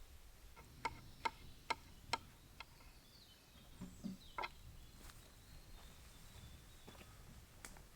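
Sharp, irregular clicks over a faint steady background hiss. About half a dozen come close together in the first two and a half seconds, then a few scattered ones later.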